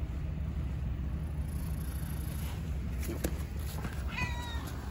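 Black-and-white kitten meowing once near the end, a short high call that falls slightly in pitch, over a steady low rumble.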